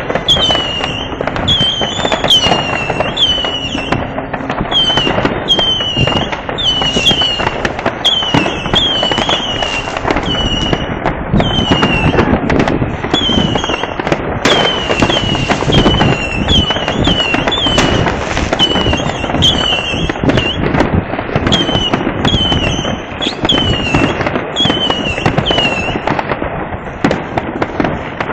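Fireworks and firecrackers going off in a constant barrage of bangs and crackles. Short high whistles that slide down in pitch recur many times through it.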